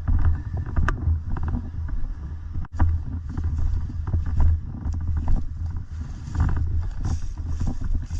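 Low, uneven rumble of wind and movement on a body-worn camera microphone as a player moves on foot, with scattered short clicks and knocks from footsteps and gear.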